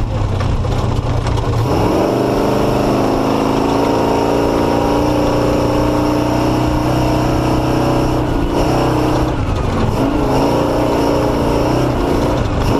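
Off-road race vehicle's engine running under load, its pitch going up and down with the throttle: it picks up about two seconds in, holds fairly steady, then drops and comes back twice near the end as the vehicle works through slow, tight terrain.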